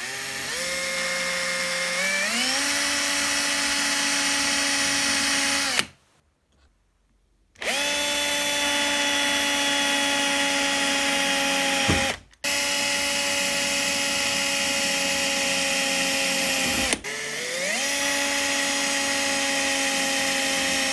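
Cordless drill boring holes in a thin metal plate. Its motor whines in several long runs with short stops between them, rising in pitch as it spins up at the start of a run.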